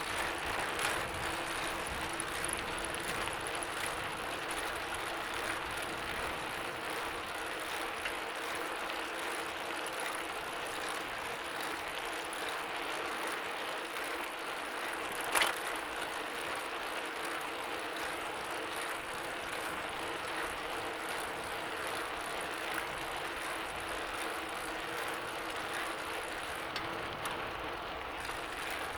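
Bicycle being pedalled on a street: steady fine mechanical ticking from the drivetrain over a constant hiss, with one sharper click about halfway through.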